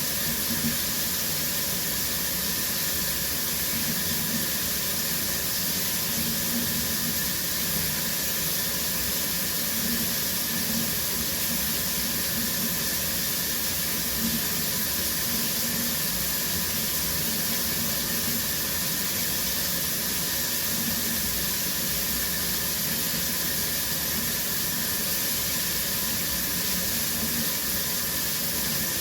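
Shower running steadily: a constant, even hiss of spraying water.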